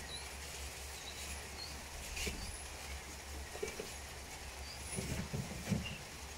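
Light rain falling on tree leaves, heard as a faint even hiss over a steady low rumble, with a few short bird chirps scattered through it.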